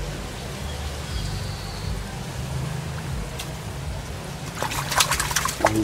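Light rain pattering on pond water as a steady hiss. About four and a half seconds in comes a burst of splashing: a fish has taken the float bait and is struck, thrashing at the surface.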